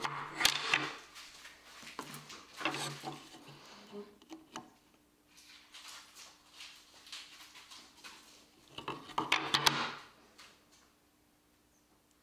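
Wooden boards and a metal dial caliper handled on a wooden workbench: irregular bursts of knocking, clatter and scraping, the loudest about nine seconds in, stopping about ten seconds in. A faint steady hum lies under the second half.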